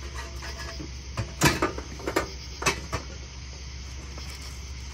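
A quick run of about six or seven sharp clinks and knocks of tools and engine parts being handled, bunched between about one and three seconds in, over a steady low hum.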